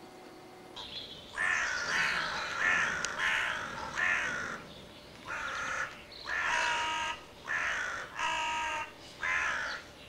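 Crow-like cawing: a series of about ten harsh caws starting about a second in, each under a second long with short gaps between.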